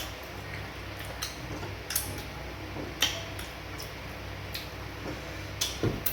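Eating sounds from a fufu and banga soup mukbang: sharp, wet mouth clicks and lip smacks, irregular and about one a second.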